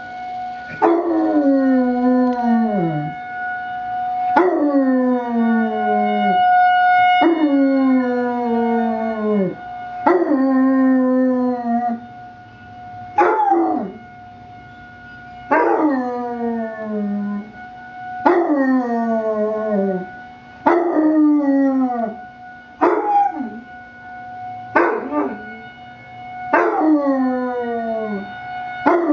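Basset hound puppy howling again and again, about eleven howls that each slide down in pitch over two to three seconds, set off by an emergency warning siren. The siren's steady tone holds underneath throughout.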